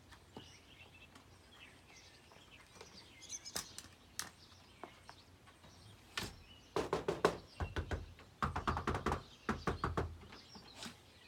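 Faint bird chirps, then a run of quick knocks and clatters from about six seconds in until near the end.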